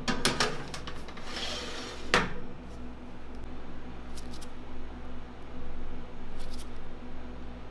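Metal baking tray scraping and clattering as it slides onto an oven rack, with a sharp knock about two seconds in. After that, a steady low hum with a few faint clicks.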